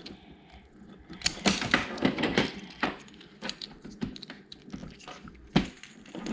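Plastic Lego bricks clicking and clattering as they are handled and sorted, an irregular run of small hard clicks with one louder knock near the end.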